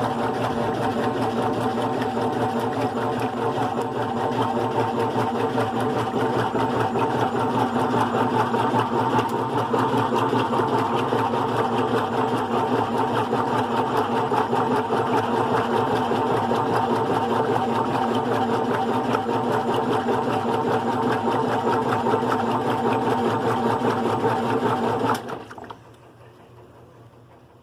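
GE Profile top-load washing machine with an agitator and a single-speed motor, running with a steady mechanical hum and churn. It stops abruptly near the end.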